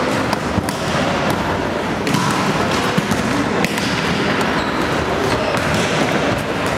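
Volleyballs being struck and bouncing on a wooden gym floor: irregular sharp thumps over a steady background hubbub, echoing in a large sports hall.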